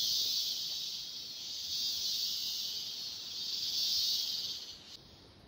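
Loud chorus of cicadas, a high buzzing hiss that swells and fades in waves, then drops away suddenly near the end.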